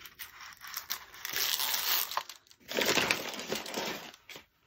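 Clear plastic protective film on a diamond painting canvas crinkling as a hand handles and smooths it, loudest in two stretches of rustling about one and a half and three seconds in.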